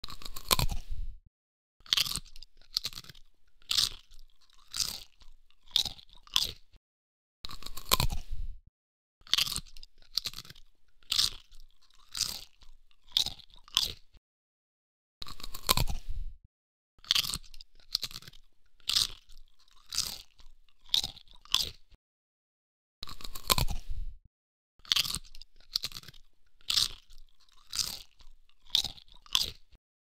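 A person biting into and chewing crisp, crunchy food. Several rounds follow one another, each opening with a loud bite and then a quick run of crunchy chews, with short silent pauses between rounds.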